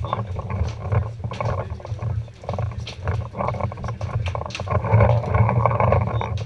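Footsteps crunching on gravel, with many sharp clicks and a steady low rumble on the camera's microphone.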